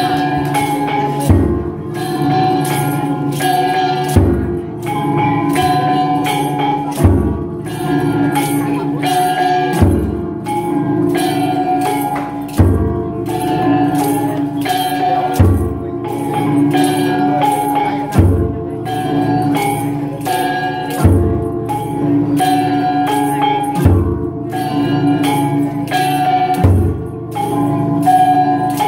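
Traditional Vietnamese ceremonial offering music (nhạc tế): a repeating melody with a heavy beat about every three seconds.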